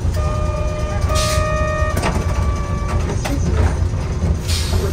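Streetcar's low, steady running rumble, with a steady pitched tone in two parts over about the first two seconds, a few sharp clicks, and two short hisses, the second near the end.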